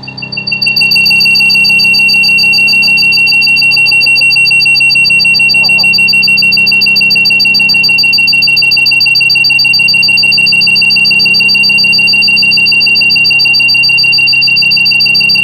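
Shrill, rapidly pulsing electronic alarm-like tone over a low steady hum. It swells up in the first second and then holds steady.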